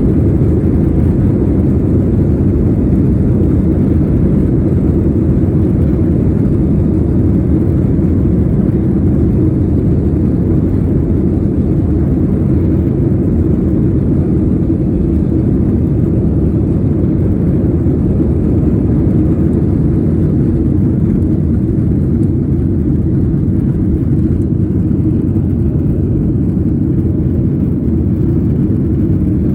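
Jet airliner noise: a steady, loud low rumble that holds level with no rise or fall in pitch.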